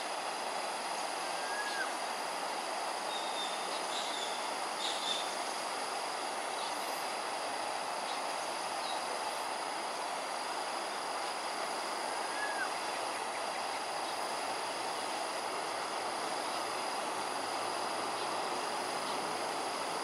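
Steady rushing outdoor background noise with a constant high thin tone. A few brief high chirps sound about 2 seconds in, around 3 to 5 seconds in, and again near the middle.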